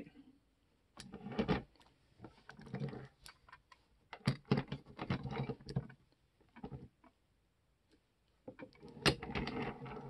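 Irregular clicks, knocks and short scrapes of 1:50 scale diecast metal bulldozer models being handled, moved about and set down on a wooden work table.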